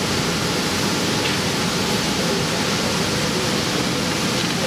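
Steady, even noise of rice-mill machinery running, with a faint steady hum in it.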